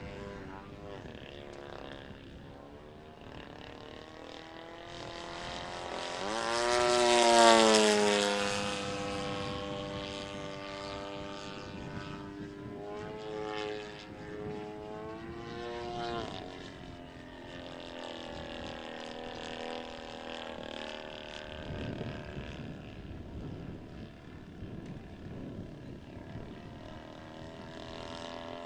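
Radio-controlled model airplane flying overhead, its engine and propeller droning steadily. It passes close about seven seconds in, loudest then, and the pitch drops as it goes by; a second pass with a rise and fall in pitch comes midway through.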